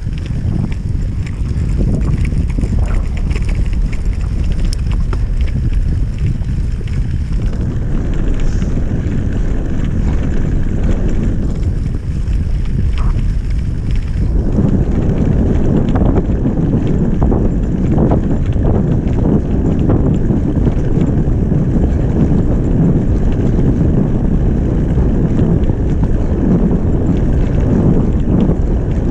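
Wind buffeting the microphone while a suspension-fork mountain bike rides fast over grass, with tyre rumble and rattling over bumps. The rumble and rattle get rougher and louder about halfway through.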